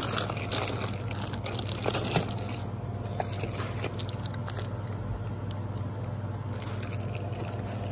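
Crackling, rustling handling noise as a small Pringles can is taken off a store shelf and held in front of a phone, over a steady low hum. The rustling is busiest in the first couple of seconds and again near the end.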